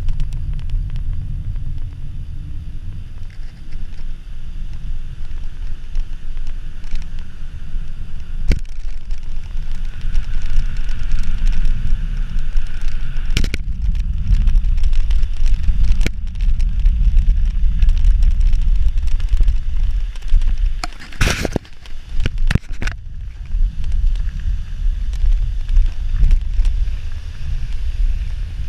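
Wind buffeting the microphone of a camera on a fast-moving mountain bike, with the rumble of its tyres rolling over the path. A few sharp clicks and rattles from bumps cut through, with a cluster of them about three-quarters of the way through.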